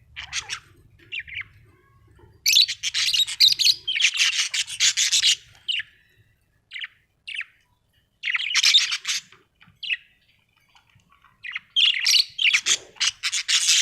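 Budgerigars chattering and warbling in fast, scratchy bursts, with short single chirps and brief pauses between the bursts.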